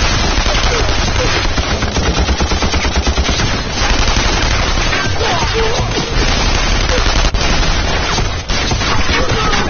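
Sustained battle gunfire: rapid bursts of automatic weapons fire overlapping with scattered rifle shots, dense and unbroken, with a few louder cracks standing out.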